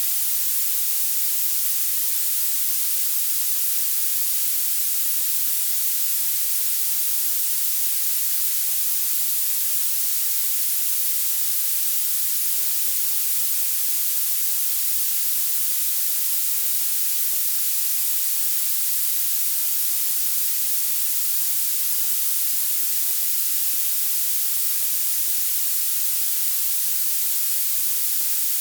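Violet noise: a steady, unchanging synthetic hiss that gets louder toward the high end and has almost no low end.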